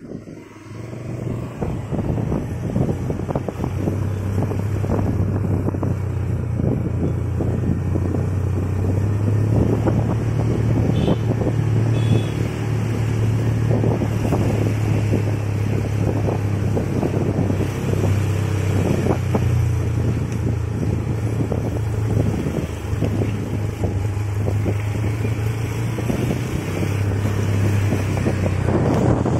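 Motorcycle engine running steadily while riding, with wind rushing over the microphone. The sound builds up over the first couple of seconds.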